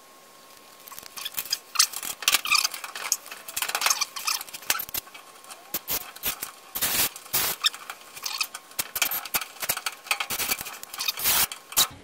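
A metal strain-relief clamp is handled and fastened onto a dryer's power cord: irregular clicks, scrapes and metal rattles, with short runs of a cordless drill-driver tightening its screws about seven seconds in and near the end.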